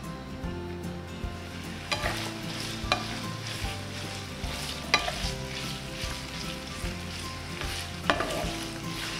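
Strips of raw beef sizzling in hot oil in a frying pan while a wooden spatula stirs them, scraping the pan and knocking against it four times. The sizzle grows louder after the first second or so.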